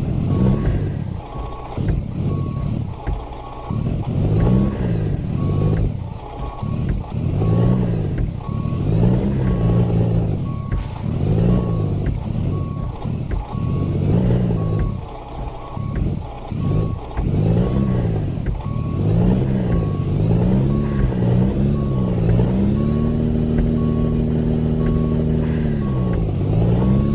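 Heavy truck engine revving up and falling back over and over, then held at a steady higher speed for a few seconds near the end. The truck's reversing beeper sounds steadily throughout.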